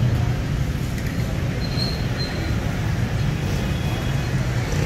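Steady low rumble of busy street traffic and market bustle.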